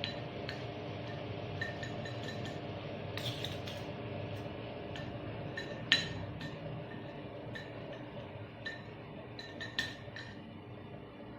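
A spoon stirring a honey, ginger-juice and lemon-juice mixture, clinking against the sides of the container a few times a second, with one louder clink about halfway through.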